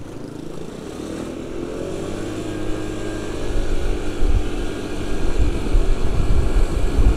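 Motor scooter engine pulling away and speeding up, its pitch rising over the first few seconds and its sound growing steadily louder, with a low rumble building underneath.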